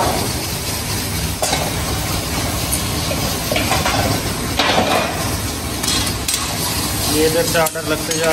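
Meat karahi curries sizzling in karahi pans over gas burners, a steady frying noise. A metal utensil scrapes and clinks against a pan a few times, with stirring near the end.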